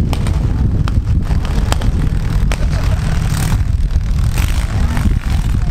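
Engines of small demolition derby cars running loud and rough, with several sharp knocks from car-on-car hits.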